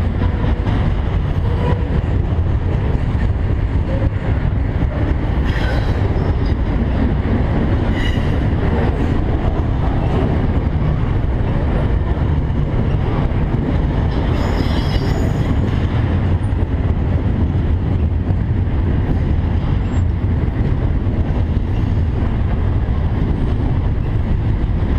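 Long CSX intermodal freight train rolling past, a steady heavy rumble with brief metallic wheel squeals about six, eight and fifteen seconds in.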